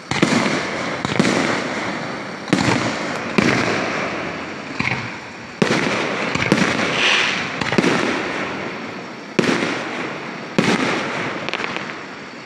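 Aerial firework shells bursting one after another, a sharp boom about every second, each fading out before the next.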